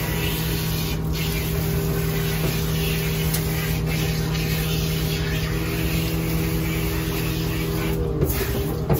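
Water hissing steadily from a handheld hose spray nozzle as a wet dog is rinsed in a stainless-steel grooming tub, over a steady low hum. The spray dips briefly a couple of times near the end.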